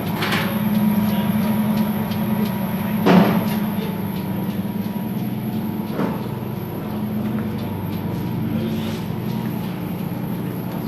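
Laundry machine running with a steady low hum, with one sharp clunk about three seconds in and a few lighter clicks.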